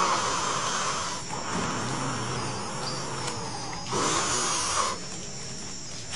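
A frightened person breathing hard close to the microphone, with two loud breaths: one at the start and one about four seconds in. A faint steady high whine of the camcorder sits under it.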